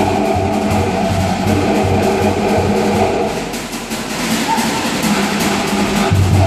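Cook Islands drum-dance music: quick wooden log-drum strokes over a regular deep drum beat. The deep beat drops away about halfway through and comes back strongly near the end.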